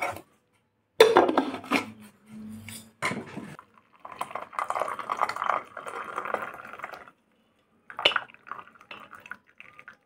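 Boiled chai poured from a pan through a plastic tea strainer into a ceramic mug: the liquid splashes steadily into the mug for about three seconds in the middle. Clinks and knocks of the pan, strainer and mug come about a second in and again near the end.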